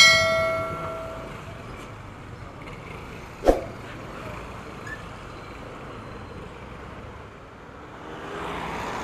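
A bell-like ding from a subscribe-button sound effect rings out at the start and fades over about a second. Under it is a steady low run of motorcycle engines and traffic, with one sharp knock about three and a half seconds in and wind noise swelling near the end.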